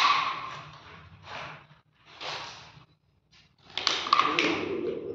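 A cloth rubbing and wiping across a wet ceramic tile floor in short strokes, with small taps and clicks among the strokes.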